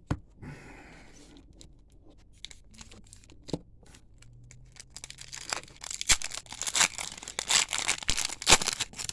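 A trading card pack wrapper being torn open and crinkled by hand. After a few light clicks and taps of card handling, a burst of loud crinkling and tearing starts about halfway through and lasts about four seconds.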